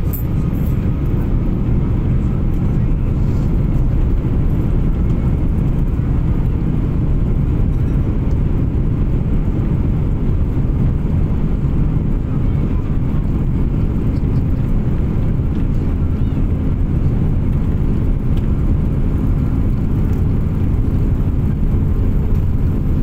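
Airliner's jet engines at takeoff power as the plane accelerates down the runway, heard inside the cabin as a steady, loud, low rumble.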